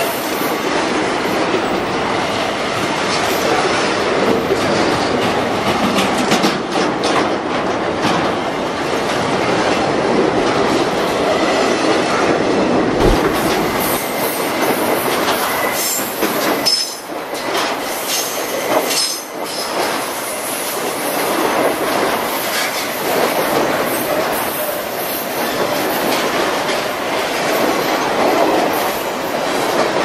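Freight wagons of a container train rolling past: a steady rumble and clatter of steel wheels over the rail joints, with thin high wheel squeal coming and going around the middle.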